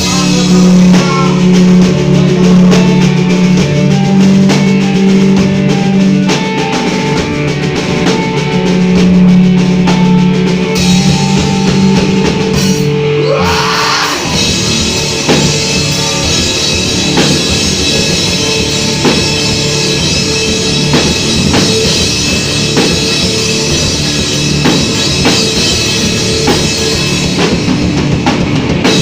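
Rock band music with a drum kit. Held low chords for about the first half, then a short break with a rising sweep about halfway through, after which busier drumming drives a denser section.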